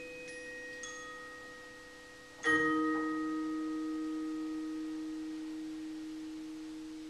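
A percussion ensemble's last notes ringing out on mallet percussion: a few high bell-like pings over fading tones, then one sudden loud struck chord about two and a half seconds in, its pure tones left to ring and slowly die away.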